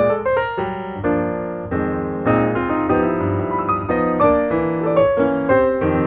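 Background piano music: a tune of quick single notes and held chords.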